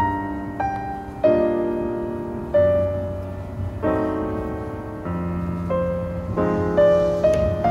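Gentle background piano music: chords and single notes struck one after another, each left to ring and fade.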